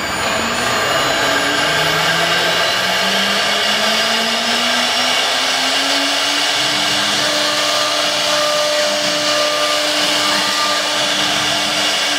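CNC router spindle running, its end mill cutting through a PVC foam sheet: a loud, steady whir with a low hum that rises in pitch over the first six seconds or so, then holds.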